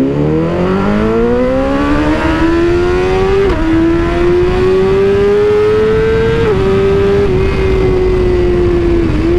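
BMW S1000RR inline-four engine pulling hard under full acceleration, its pitch climbing steadily. It upshifts twice, with a sharp drop in pitch about three and a half and six and a half seconds in, then holds a steady high cruise.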